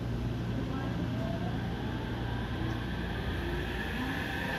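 JR West 225 series electric train pulling away from the platform: a steady rumble of wheels on rail with the faint rising whine of its traction motors as it gathers speed.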